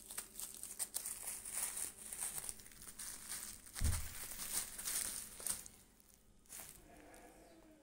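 Plastic bubble wrap crinkling and crackling as a kitten plays in it, with a low thump about four seconds in; the crinkling dies down about six seconds in.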